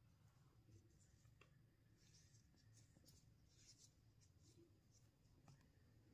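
Near silence, with faint scratchy rustles and a few light clicks from rubber-gloved hands handling a small star-print fabric-covered miniature toy piece.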